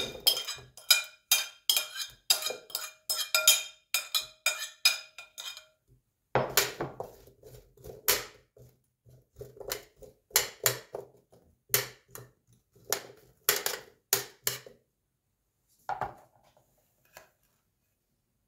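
Metal spoon clinking and scraping against a ceramic bowl and a metal baking tray as seasoned potato and carrot pieces are spooned out and spread. A quick run of clinks, some ringing briefly, for the first six seconds, then a slower series of clatters that stops about 15 seconds in.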